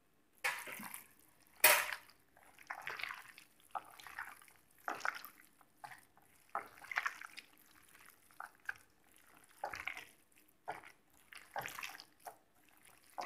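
Wet squelching of a bare hand kneading chicken pieces in a thick marinade of spice powder, egg and cornflour in a glass bowl, in irregular squishes about once a second, with one sharper, louder smack about two seconds in.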